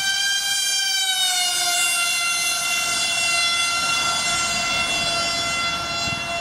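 Radio-controlled model jet plane's motor giving a loud, high-pitched whine in flight. The pitch drops a little about one to two seconds in, as it passes, then holds steady.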